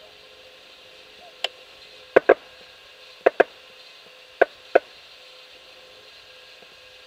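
Geese calling in flight: seven short honks, first a single one, then three quick pairs about a second apart.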